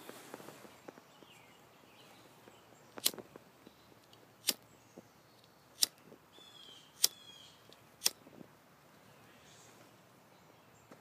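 A handheld lighter flicked five times to light a pipe bowl: sharp clicks about a second and a half apart. A bird chirps briefly about halfway through.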